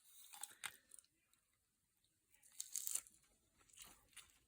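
Faint sounds of eating a Burger King Whopper: a few soft crunches and crinkles, with a short cluster of them about halfway through and near silence between.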